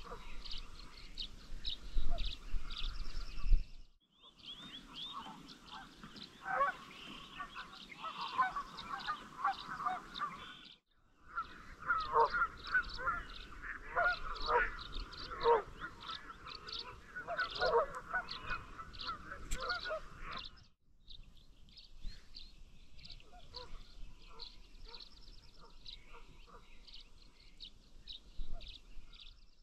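Waterfowl calling: many short, repeated calls overlapping, with higher chirps of small birds among them. The sound cuts out completely three times, for a moment each.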